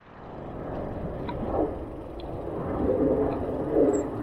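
Wind rumbling over the camera microphone while cycling, cutting in suddenly and swelling, with a few faint ticks.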